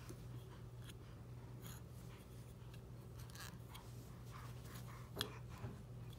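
Faint scratching and rustling of a small plastic toy cup being handled and mouthed by a baby, with a sharp click about five seconds in and a smaller one just after, over a low steady hum.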